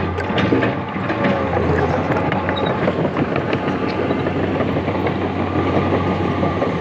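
Komatsu hydraulic excavator's diesel engine running steadily under load, with scattered metallic knocks and clatter from the machine working the steel plates.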